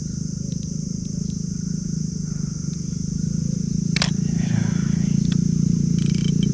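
A low engine drone that slowly grows louder, over a steady high-pitched buzz, with a single sharp click about four seconds in.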